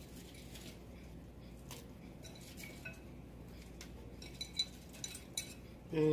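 A few scattered, faint clinks and taps of a kitchen utensil against an enamelled cast-iron Dutch oven as vegetables are set into the pot.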